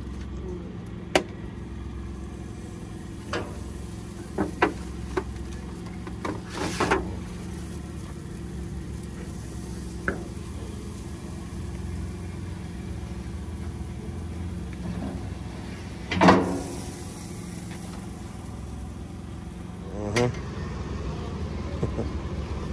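Scattered clicks and knocks from handling a foil pan and a smoker's wire grate as racks of ribs are laid on, over a steady low mechanical hum. The loudest knock comes about sixteen seconds in.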